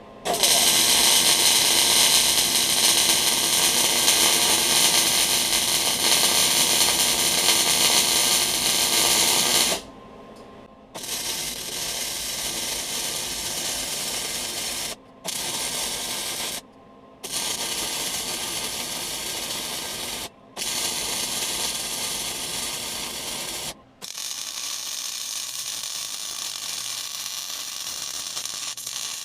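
Wire-feed welding gun's arc crackling and hissing while a hook is welded onto an excavator bucket. One long bead of about ten seconds is followed by a string of shorter beads, each stopping suddenly for a moment before the arc strikes again.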